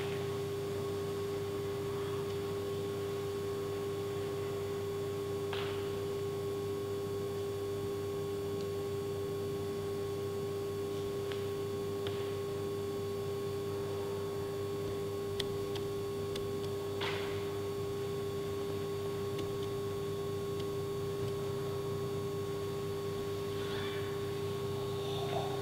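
A steady hum holding one pitch over a lower, rougher hum, unchanging throughout, with a few faint scuffs and taps, likely hands and feet on the steel rack.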